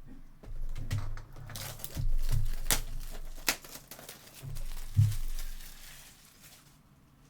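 Trading-card box and pack wrappers being torn open and crinkled, with sharp clicks and handling taps in short bursts, then quieter near the end.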